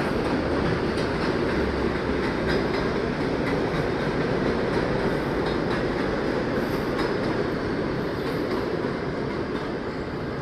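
Electric train running on the rails with a steady rumble and occasional wheel clicks over rail joints, easing off slightly near the end.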